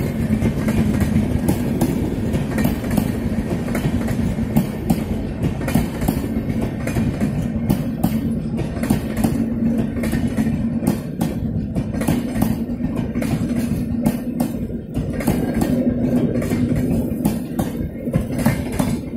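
Passenger coaches of the Mumbai–New Delhi Rajdhani Express rolling slowly past close by. Their wheels click and knock irregularly over rail joints, over a steady low hum.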